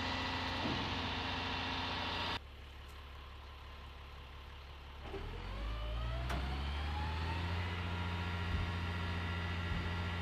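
Heavy military truck's diesel engine running steadily. A few seconds in the sound drops to a quieter run, then the engine speeds up with a rising whine over about two seconds and settles into a steady, higher, louder run.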